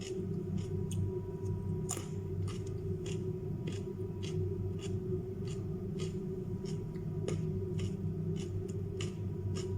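Raw carrots and cucumber being chewed: quick crisp crunches, about two to three a second, over a steady low hum.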